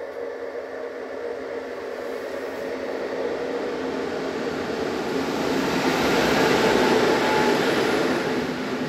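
Passenger train running along the line, a steady rumble and rail noise that grows louder to a peak about six to seven seconds in, then eases.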